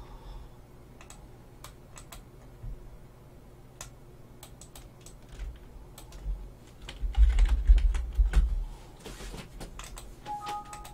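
Typing on a computer keyboard: scattered, irregular key clicks. A low rumble of bumps comes about seven seconds in, and a brief two-note tone sounds near the end.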